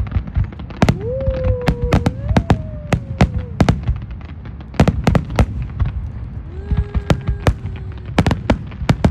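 Fireworks display: a rapid, irregular barrage of sharp bangs from bursting shells, several a second, over a low rumble. Two long drawn-out wailing tones rise above the bangs, one early and one near the end.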